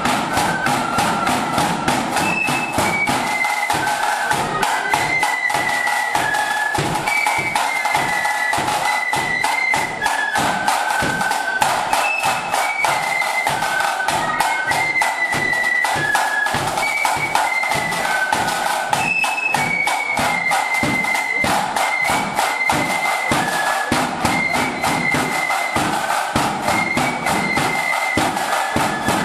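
Flute band playing a march: flutes in unison carry a high, stepping tune over a steady beat of bass drum and side drums, about two beats a second.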